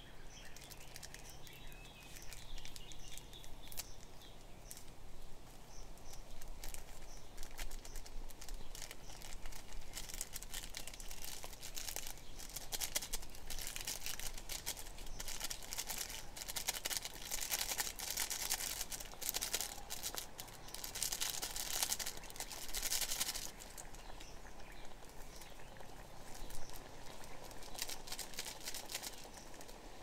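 Irregular crackling and rustling, many small clicks and crinkles, thickest in the middle of the stretch, with birds chirping faintly in the first few seconds.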